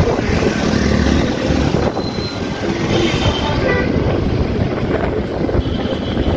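Wind buffeting the microphone over the steady running noise of a Suzuki scooter being ridden along a road, its engine and tyres rumbling underneath.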